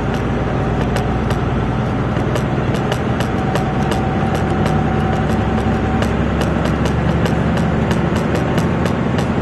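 A Dodge 2500's 12-valve Cummins 5.9-litre inline-six turbodiesel running steadily under load, heard from inside the cab. Frequent sharp rattles and knocks, several a second, come as the truck rolls over a rough dirt track. A thin whistle fades out about six seconds in.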